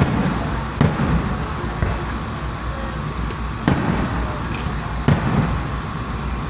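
Aerial fireworks shells bursting overhead: about five sharp booms one to three seconds apart, each trailing off in a low rolling rumble, over steady background noise.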